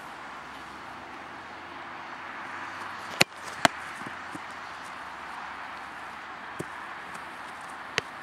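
A football struck hard, then about half a second later slapping against a goalkeeper's gloves: two sharp thuds. A couple of fainter knocks follow, over a steady outdoor rushing background.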